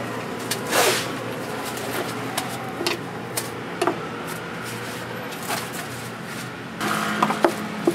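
Working noise at a food stall: a steady low hum with scattered light clicks and knocks, a short hiss about a second in, and a busier patch of clatter near the end.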